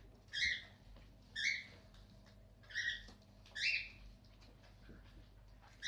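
A puppy giving short, high-pitched squeals, four times at irregular intervals of about a second.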